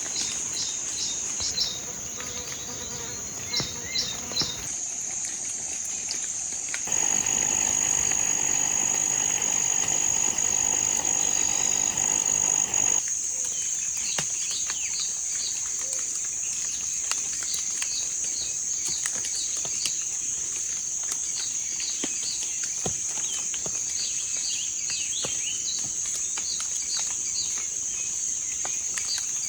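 Insects trilling continuously in a high, steady drone, with short chirps repeating over it. A louder, noisier stretch runs from about 7 to 13 seconds in.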